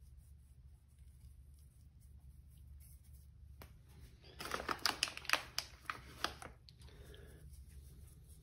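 Containers being handled on a wooden table: a dense run of sharp clicks and rattles lasting about two seconds near the middle, over a faint steady low hum.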